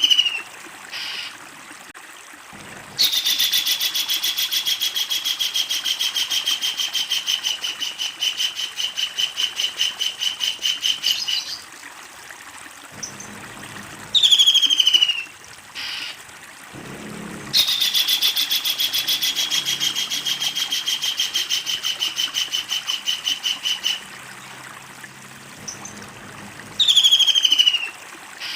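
Kingfisher calling: two long, fast-repeated rattling series, each lasting several seconds, the first beginning about three seconds in. Short downward-sliding calls come just before, between and near the end of the series.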